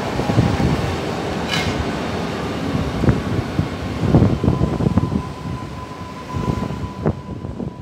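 An electric multiple unit passenger train passing on the near track, its wheels rumbling and clacking over rail joints, with a steady whine. The sound eases off near the end as the last car goes by.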